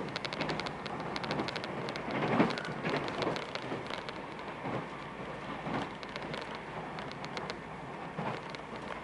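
Rolling noise of a Meitetsu μSKY (2000 series) electric train heard from inside the carriage: a steady rushing hiss with runs of quick sharp clicks from the wheels passing over the track. There is a brief louder swell about two and a half seconds in.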